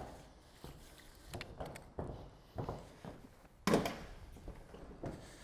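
Footsteps on corrugated COLORBOND steel roof sheets: a run of irregular knocks and thuds on the metal, the heaviest about three and a half seconds in.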